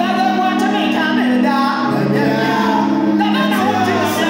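Live church worship music: a group of singers singing over a band of keyboard, electric guitar and percussion, played at a steady level.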